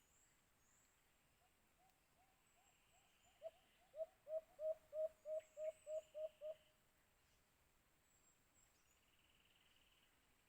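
White-eared brown dove calling: a run of about a dozen short, low hooting notes, about three a second. The notes start faint, grow louder, then stop about two-thirds of the way through.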